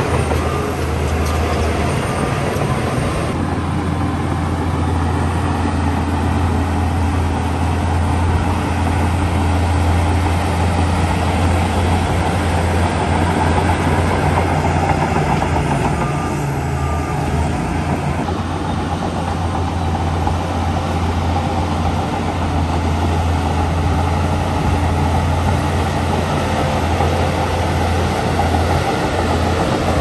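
Heavy diesel engine of earthmoving machinery running steadily: a loud, continuous deep drone with mechanical noise above it.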